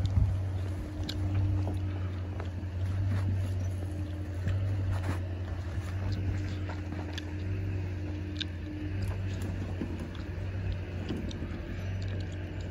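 A steady low mechanical hum runs throughout, with scattered crunching footsteps on snow.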